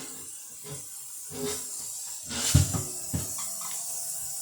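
Warm tap water running steadily onto a glass refrigerator shelf in a sink, with a couple of sharp knocks of the shelf against the sink just past halfway.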